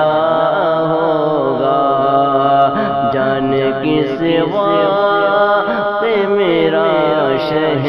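A man's voice singing a devotional Urdu naat over a continuous chanted vocal backing, in long melodic lines.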